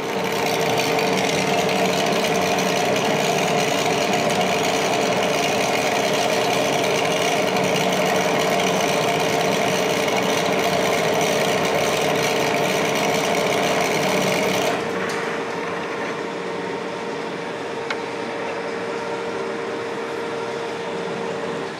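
Monarch engine lathe taking a heavy roughing cut in 4140 steel with a carbide insert: a loud, harsh, brutal cutting noise over the steady hum of the spindle drive. About 15 seconds in the cutting noise drops away, leaving the lathe running on its own.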